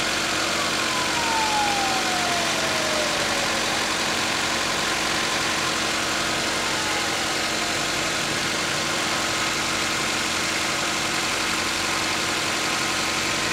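1992 Honda Civic's engine idling steadily with the hood open, run so the freshly added coolant circulates through the cooling system after a radiator hose replacement. A thin whine falls in pitch over the first few seconds, and again faintly a little past the middle.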